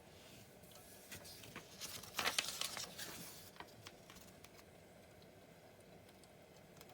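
A brief burst of crinkling and rustling with a few sharp clicks, loudest about two seconds in, over faint room tone.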